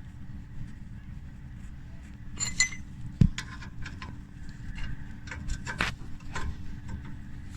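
Metal tools and parts clinking and knocking: one ringing clink, a sharp knock about three seconds in, then a run of scattered clicks, over a steady low hum.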